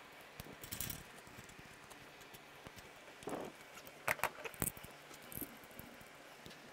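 Light metallic clinks and taps of bolts and tools as the gearbox-to-engine bolts on a BMW R90/6 are started by hand, with a quick cluster of sharp clicks about four seconds in.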